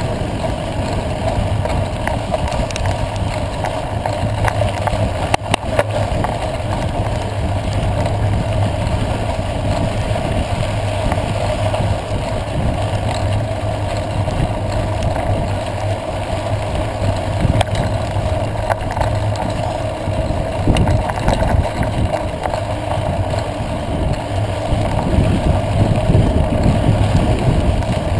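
Wind rushing over the microphone of a camera carried on a moving mountain bike, mixed with the tyres rolling on a dirt road: a steady rumbling noise with scattered clicks and knocks from the bike, growing a little louder near the end.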